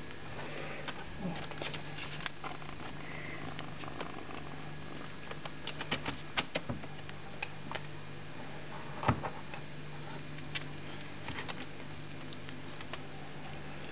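Young kittens moving about in a plastic pet carrier lined with newspaper: scattered light clicks, taps and scrapes of small claws on plastic and paper, with one louder knock about nine seconds in. A steady low hum runs underneath.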